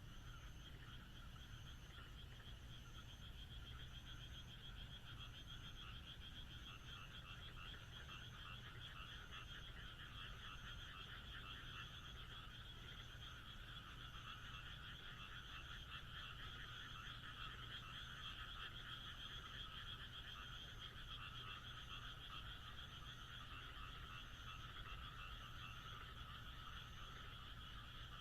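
Chorus of many frogs calling continuously at night, a dense overlapping trill, with a faint high chirp repeating about once a second.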